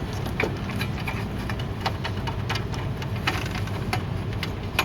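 Scattered light clicks and knocks of hands and tools working a metal bracket loose inside a voting machine's housing, over a steady low hum.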